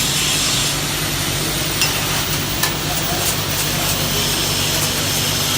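Slag being scraped and knocked off a freshly laid 6013 stick weld, a steady scratchy noise broken by two sharp taps about two and two and a half seconds in, over a steady low hum.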